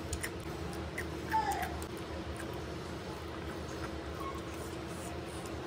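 Mukbang eating sounds: scattered wet mouth clicks and chewing as rice is eaten by hand from a banana leaf, over a faint steady hum. A short, high, falling chirp-like call sounds once about a second and a half in.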